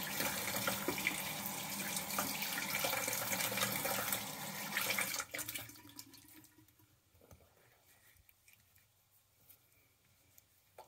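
Bathroom sink tap running cold water for rinsing the face after a wet shave, shut off suddenly about halfway through. After that there are only a few faint small clicks.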